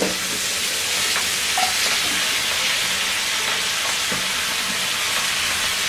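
Hot oil sizzling steadily in a frying pan as Malabar spinach leaves are piled in by hand, with a few soft taps.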